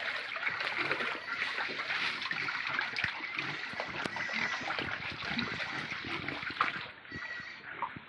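Pigs jostling and feeding on sweet potato tops in a wet, muddy pen: a dense, continuous splashing and crackling of trampling and eating, easing off near the end.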